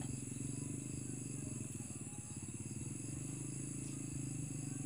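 Steady outdoor field ambience: a low buzzing hum with a fine rapid pulse, and a high steady insect-like drone above it.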